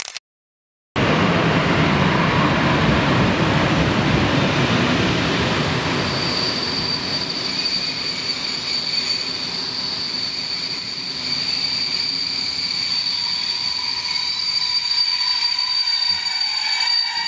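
After a moment of silence at the very start, a passenger train hauled by an electric locomotive rolls in and slows, its wheels rumbling on the rails. From about five seconds in a steady high-pitched squeal from the wheels and brakes sets in and holds while the rumble fades as the train comes nearly to a stop.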